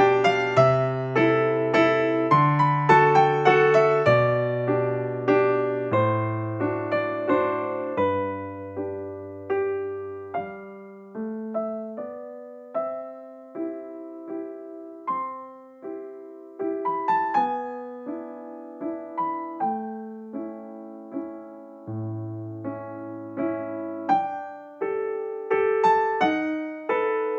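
Background music: a gentle piano tune, fuller with bass notes at first, thinning to a sparse melody in the middle, then filling out again near the end.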